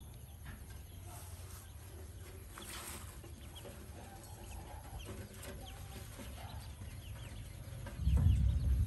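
Many ducklings peeping in short, scattered chirps. A loud low rumble starts near the end.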